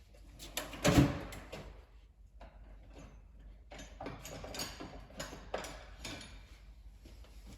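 Hand tools working metal on a turbocharger: one loud knock about a second in, then scattered small clicks and scrapes, as a chisel is put to its stuck bolts.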